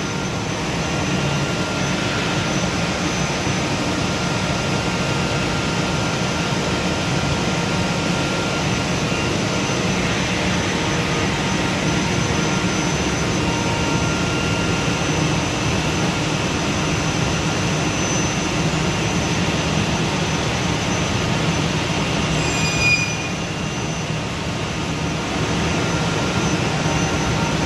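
Industrial wood-cutting machine running steadily and loudly as it cuts plywood sheets, with a short sharp sound about 23 seconds in, after which the noise drops slightly for a moment.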